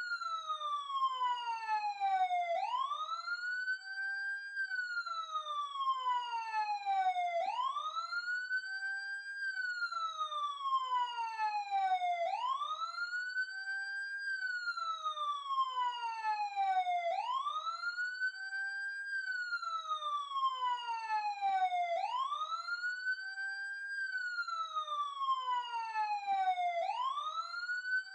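Emergency siren wailing in a repeating cycle. Each cycle rises quickly in pitch, holds briefly at the top, then slides slowly back down, about every five seconds.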